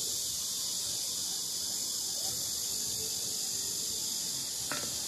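Steady high-pitched insect chorus. Near the end a short sharp snap as a green chilli is pinched off the plant.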